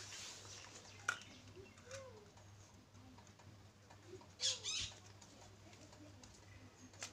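Pigeons cooing softly now and then, with a sharp click about a second in and a short rasping hiss about four and a half seconds in. A steady low hum runs underneath.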